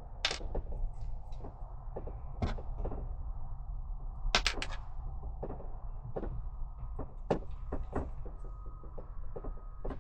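Scattered knocks and clicks of small objects being handled and set down, with a short cluster of sharper clacks about four seconds in.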